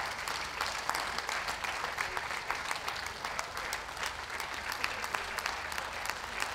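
Ringside audience applauding steadily: many hands clapping at once.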